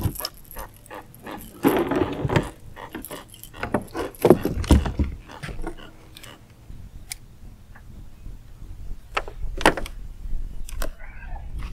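Irregular knocks, clatters and scrapes from handling a freshly caught blue catfish and gear on a boat, including a dense rattling scuffle about two seconds in.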